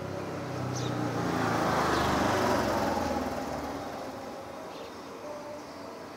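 A motor vehicle driving past, its engine and tyre noise swelling to a peak about two seconds in and fading away over the next couple of seconds.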